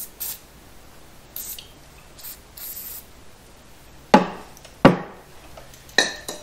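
Short hisses of an aerosol can of PB Blaster penetrating oil sprayed in several brief bursts onto old lower control arm bushings, to loosen them before they are driven out. About four seconds in come three sharp knocks, the loudest sounds.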